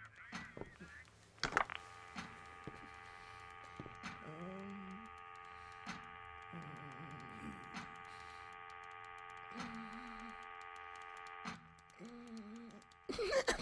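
Sound design of a vast machine: a steady electric hum of several tones, broken by sharp clicks every couple of seconds and a few short wavering squeaks. A louder clatter starts suddenly near the end.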